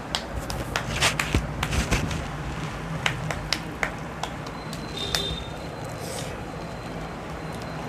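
Close-up eating sounds of rice and fish curry being eaten: a quick run of wet clicks and crackles in the first four seconds, thinning out after that.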